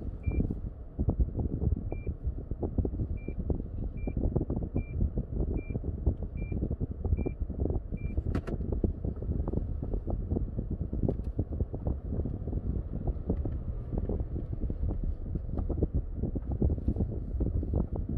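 A car driving, with a steady low road-and-wind rumble that buffets up and down. For the first eight seconds a short high beep sounds at an even pace, about one every 0.8 seconds. A single sharp click comes just after the beeps stop.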